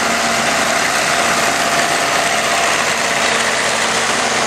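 Vintage farm tractor engines idling steadily.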